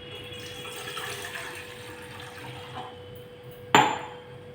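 A glass of water being poured into a cooking pot, then a sharp knock about three and a half seconds in, as something hard is set down.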